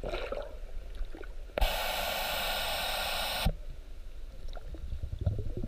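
Underwater sound picked up by a submerged camera in murky lake water: a low rumble with scattered faint clicks and crackles. About a second and a half in, a steady hiss starts suddenly and cuts off just as suddenly about two seconds later.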